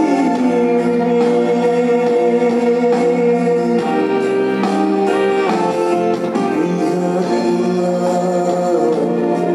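A man singing into a handheld microphone over backing music, amplified so that voice and accompaniment fill the room.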